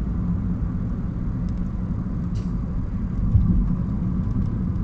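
Steady low rumble of a car's engine and tyres on the road, heard from inside the moving car's cabin, with a few faint ticks.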